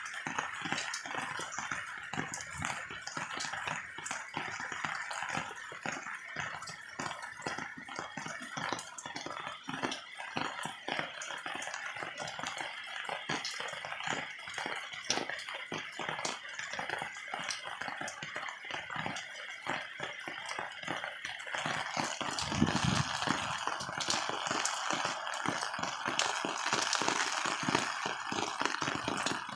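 Heavy rain falling, with a dense run of drops tapping close by. About three quarters of the way through there is a brief low rumble, and the rain then sounds fuller and a little louder.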